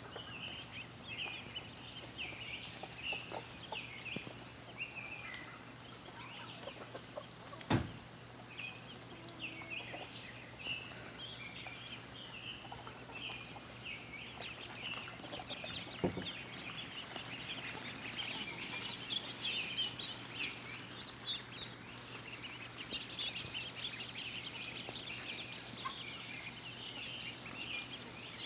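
A large flock of ducklings peeping constantly, many short high calls overlapping. Two sharp knocks come about eight and sixteen seconds in.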